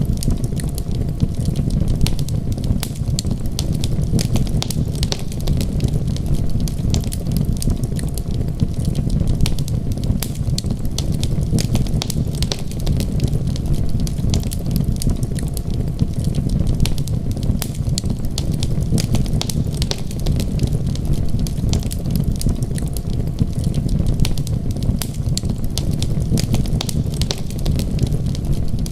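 Wood fire crackling, with many small irregular pops, over a steady low rumble.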